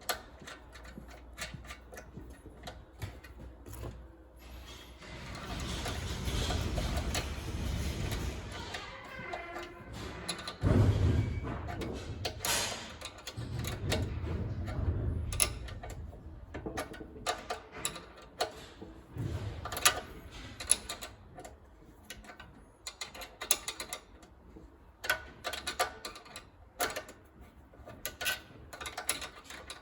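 Hand tools clicking and clinking on the metal of a Pallmann Cobra floor sander's top-roller assembly as a nut is threaded on and the fittings are tightened. The clicks come irregularly, with a busier scraping stretch about a third of the way in and one louder metal knock just after.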